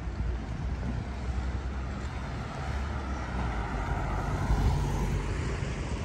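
A passing engine sound that swells over a few seconds and then fades, over a steady low rumble.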